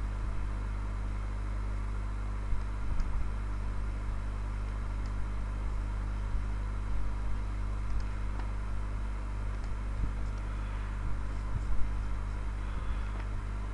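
Steady low background hum and hiss from the recording setup. A few faint clicks and soft bumps come now and then, around three seconds in and again near the end.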